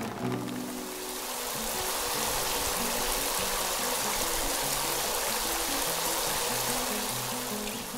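Rushing water, like a stream, swelling in over the first second and easing off near the end, over music of low held notes.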